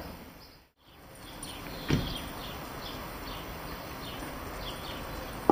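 Outdoor garden background with small birds chirping faintly and repeatedly. The sound drops out briefly just before a second in, and about two seconds in there is a single short, dull sound.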